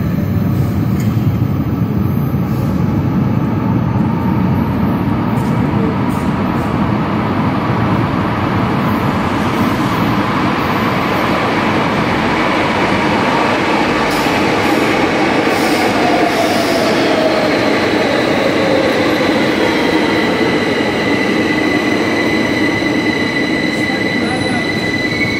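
Algiers Metro train approaching through the tunnel and pulling into an underground station: a steady loud rumble, with a whine that falls in pitch as the train slows, and a high steady squeal near the end as it draws alongside the platform.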